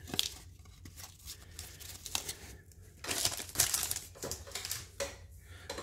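Crinkling and rustling as baseball cards and their pack packaging are handled, with a few light clicks; busiest from about three seconds in.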